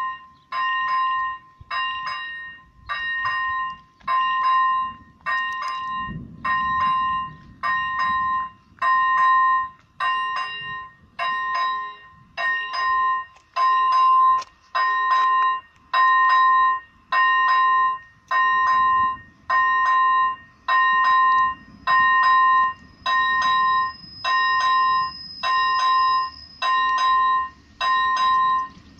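Electronic warning bell of an AŽD 97 automatic level-crossing system ringing about once a second, each ring a short bell-like tone. The crossing is closed, with barriers down, signalling that a train is approaching.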